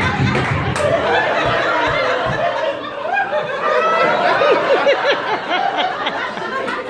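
Audience laughing and chuckling, with a run of quick 'ha-ha' laugh pulses about four and a half seconds in.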